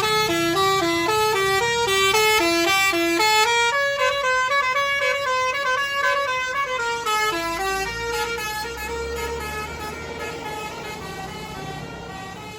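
A bus's telolet basuri musical horn plays a quick melody of short stepped notes over the bus's engine. It grows fainter as the bus pulls away, and the tune fades out about two-thirds of the way through.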